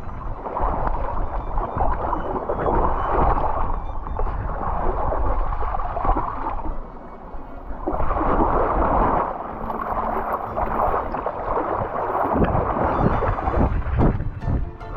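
Creek water sloshing and gurgling against a harness-mounted action camera as a dog wades and swims, with a few sharper splashes near the end as the dog leaves the water.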